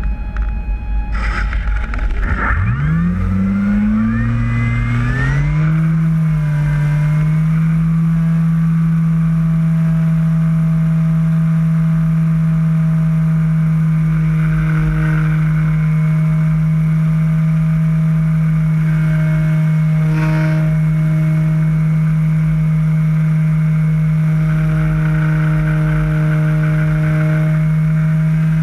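Model Carbon Cub floatplane's motor and propeller, heard from the onboard camera, spooling up from nearly stopped about two seconds in, the pitch rising in steps. They then run steadily at full speed, with wind rushing over the camera.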